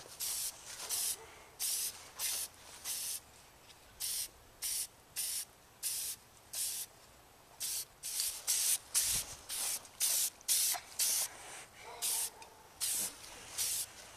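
Aerosol spray paint can being sprayed in many short bursts of hiss, one or two a second, each lasting a fraction of a second, with brief pauses between them.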